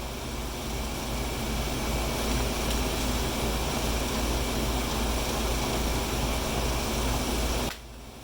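Steady whooshing machine noise with a low hum underneath, cutting off suddenly near the end.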